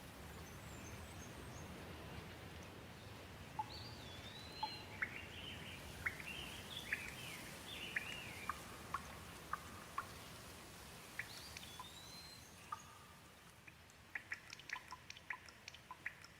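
Gentle rain falling steadily, with a bird calling in short sweeping chirps and whistles through the middle. Near the end the rain thins and separate drops drip and tick quickly.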